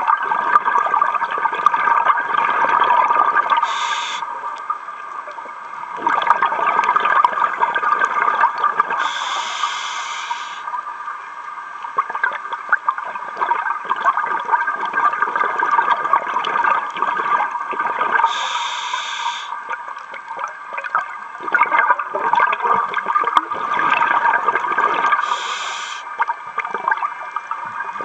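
A scuba diver's regulator breathing underwater: a short hiss on each inhale, four times, between long stretches of crackling, gurgling exhaust bubbles.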